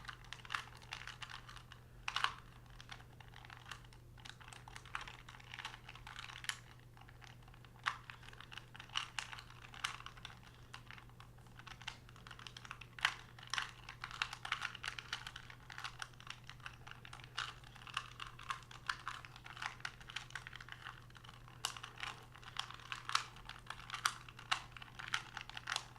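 Plastic clicking and clacking of a 2x2x2 Rubik's cube being turned quickly in the hands, in irregular flurries of short clicks, over a faint steady low hum.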